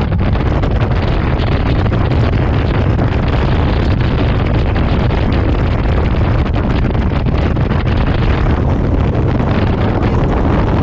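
Steady wind rush buffeting the camera microphone on a motor trike travelling at road speed, with the trike's engine running underneath.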